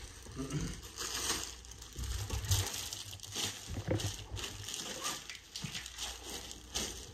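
Plastic packaging crinkling and rustling, with a few light knocks, as boxed camera gear is handled and moved about on a table.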